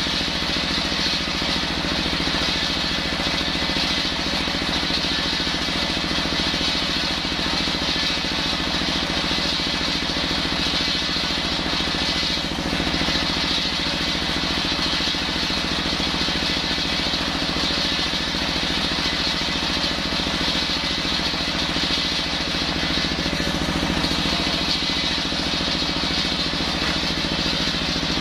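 Stationary single-cylinder diesel engine running steadily, driving a table circular saw whose blade spins freely without cutting; the engine's rapid even firing is heard under a steady high-pitched sound from the spinning blade.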